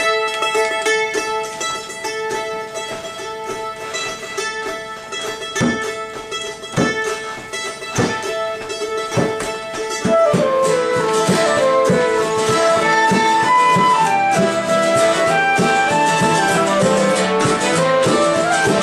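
Traditional Irish folk tune on acoustic instruments. A mandolin opens alone with tremolo picking on a held note, with a few separate strums. About ten seconds in, flute, fiddle and acoustic guitar join in together on the melody and it gets louder.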